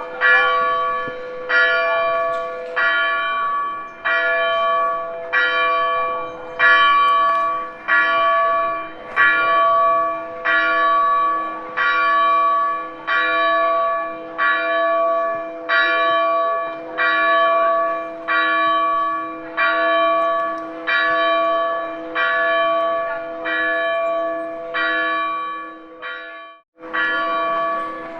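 A single church bell tolling, struck about once every 1.3 seconds. Each stroke rings on and overlaps the next. The strokes break off abruptly for a moment near the end, then resume.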